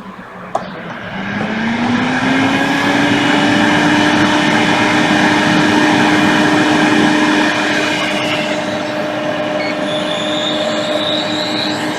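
Solder fume extractor fan switched on, spinning up with a hum rising in pitch over the first couple of seconds, then running steadily with a rushing of air.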